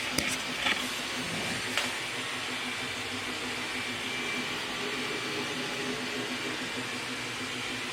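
Flashforge AD5X 3D printer running mid-print: a steady whirring hum of fans and motors with a constant low tone, and a few light clicks in the first two seconds.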